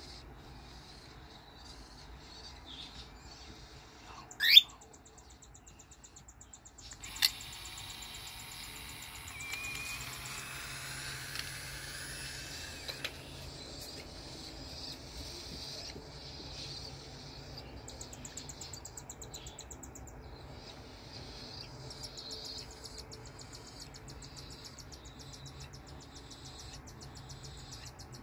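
Cockatiel nestlings begging: repeated raspy, hissing chirps that run on and off, thickest between about 7 and 13 seconds in. About four and a half seconds in there is one loud, quick rising whistle.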